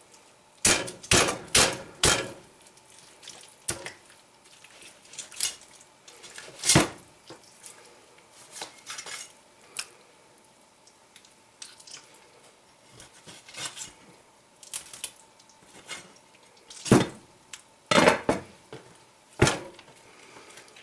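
A French billhook's blade knocking against a plastic cutting board as raw chicken is cut up, in irregular sharp knocks with soft handling of wet meat between them. There is a quick cluster of knocks in the first couple of seconds, and the loudest knocks come in the last few seconds.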